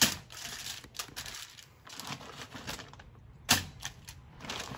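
Aluminum foil crinkling and rustling under hands laying raw pike fillets on it in a wire grill basket, with scattered small clicks and two sharp louder clicks, one at the start and one about three and a half seconds in.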